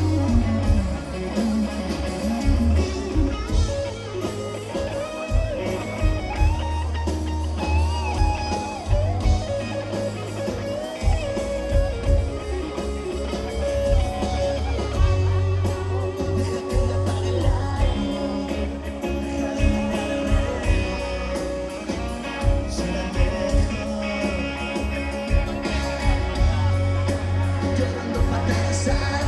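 Live rock band playing: guitars and bass over a steady drum beat, with a voice singing.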